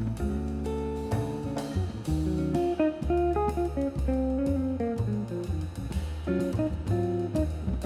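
Background workout music: plucked guitar over bass and a steady drum beat.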